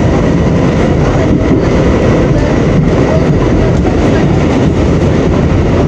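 New York City subway train running at speed through a tunnel, heard from inside the car: a loud, steady rumble of wheels on rail.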